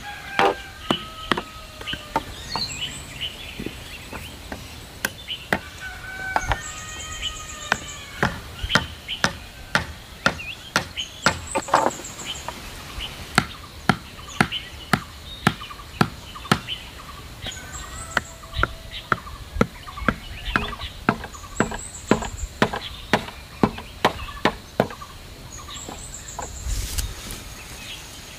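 A wooden club pounding stakes into soil to hold bamboo edging poles: a long series of sharp knocks, roughly one a second. Chickens call in the background.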